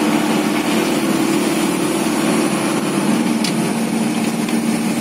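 Isuzu Panther's four-cylinder diesel engine running steadily under load as it climbs a steep hill, heard from inside the cabin.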